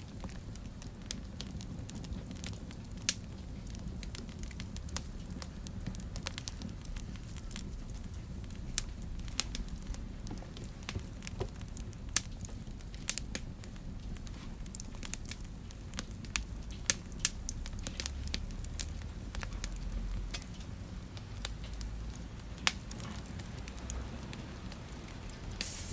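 Wood fire burning in a fireplace, crackling with irregular sharp pops over a low, steady rumble of the flames.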